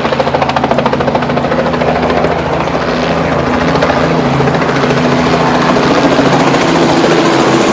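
Helicopter taking off. Its rotor beats in rapid pulses for the first couple of seconds, then merges into a steadier whir over the engine's steady hum.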